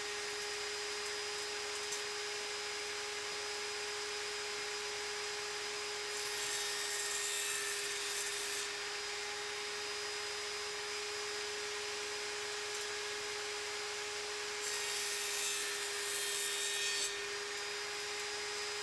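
Steady factory machinery noise: a constant hum with a hissing rush. It swells twice into a louder, higher hiss for about two seconds each, the first some six seconds in and the second near fifteen seconds.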